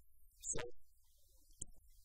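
A pause in a man's talk: one short vocal sound about half a second in and a faint click later, over a low steady hum.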